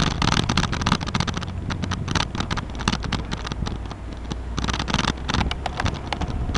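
Bicycle rolling along an asphalt path: wind on the microphone with a rapid, irregular stream of clicks and rattles from the bike over the path surface.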